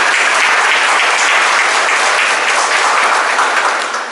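Audience applauding: dense, steady clapping that begins to die away near the end.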